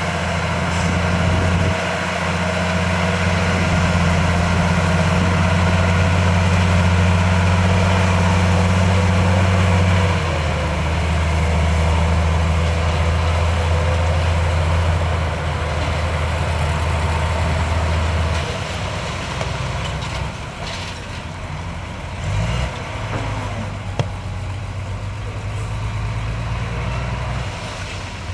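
Heavy diesel engine of earthmoving machinery running with a steady low hum. The hum drops in pitch about ten seconds in and fades to a lower, quieter running about eight seconds later. There is one sharp click near the end.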